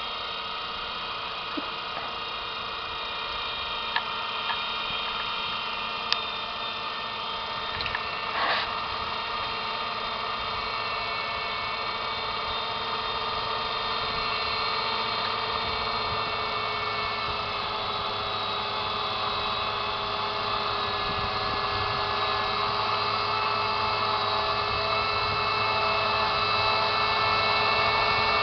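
New Holland TV140 four-track tractor's diesel engine running steadily: a drone with several steady whining tones over it, slowly getting louder. A few brief clicks in the first nine seconds or so.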